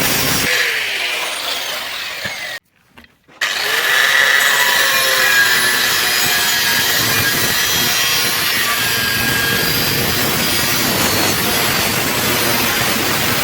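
Power tool cutting iron pipe: a steady, loud cutting noise with a high ringing tone. It cuts out briefly about two and a half seconds in, then resumes and runs steadily.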